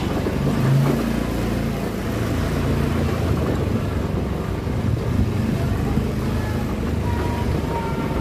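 Small motorcycle engine running steadily at low speed, a continuous low hum.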